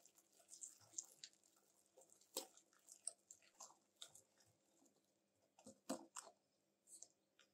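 Faint, irregular soft squelches and light clicks of a small metal whisk stirring thick cake batter in a glass bowl, with a couple of slightly louder strokes about two and a half and six seconds in.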